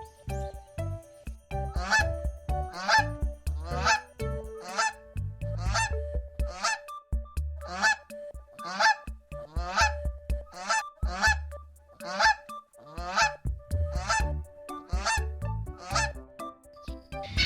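A large bird calling over and over, a long run of short pitched calls at roughly one to two a second.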